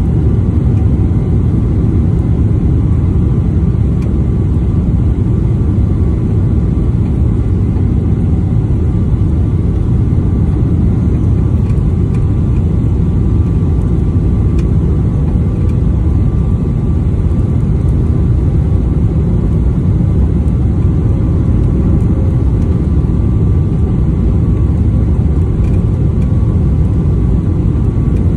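Steady cabin roar of a jet airliner on final approach, engine and airflow noise heard from a window seat over the wing, with a faint steady whine above the low rumble.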